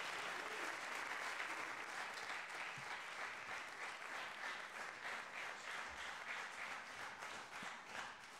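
Audience applause: dense clapping that slowly thins into scattered separate claps and dies away near the end.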